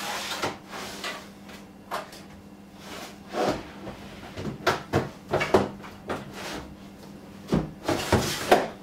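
Irregular clunks and scrapes of heavy UPS battery modules being pulled and handled inside an external battery pack, about ten knocks, the loudest clustered around the middle and near the end.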